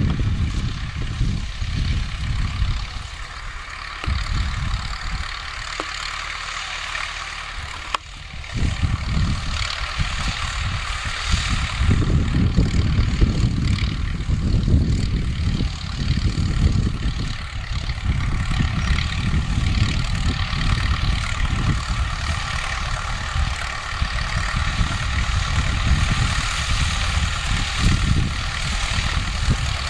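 Vladimir T-28 tractor with a T-40 air-cooled diesel engine running steadily under load as it pulls a wheel rake through hay. It is quieter for a few seconds near the start, then louder from about eight seconds in as the tractor draws near.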